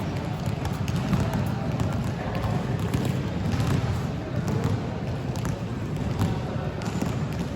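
Basketballs being dribbled on a court, a dense run of overlapping bounces with no single steady rhythm.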